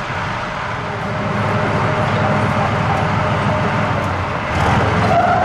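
Soviet IS-2 heavy tank's V-2 V12 diesel engine running, picking up revs about a second in and again near the end.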